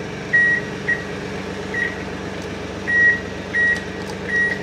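Preet 2649 mini tractor's diesel engine idling steadily, with a high electronic beep sounding six times in short, uneven blips.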